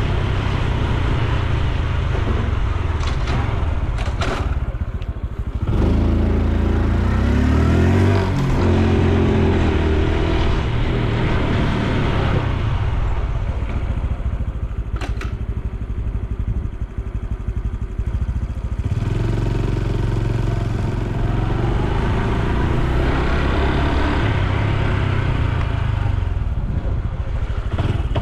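Honda Super Cub C125's air-cooled single-cylinder 125 cc engine and exhaust heard while riding, with wind and road noise. The engine note rises as the bike picks up speed a few seconds in and again in the second half, easing off in between.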